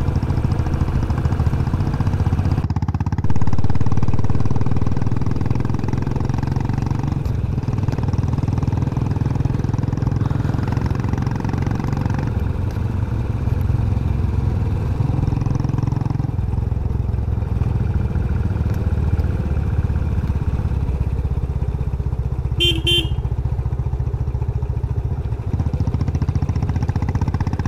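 Motorcycle engine running steadily while riding on a rough road, with a low rumble that swells about three seconds in and changes pitch a few times as the rider works the throttle. A short horn beep sounds near the end.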